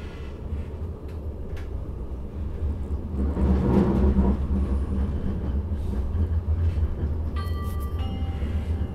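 Interior running noise of a Stagecoach Citylink Class 399 tram-train on the move: a steady low rumble that swells louder for a moment about three to four seconds in. Near the end a short two-note electronic chime sounds.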